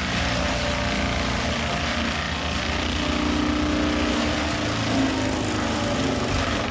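Bobcat T870 compact track loader's diesel engine running steadily at working speed with its forestry mulcher head spinning: a steady engine drone under a dense wash of noise.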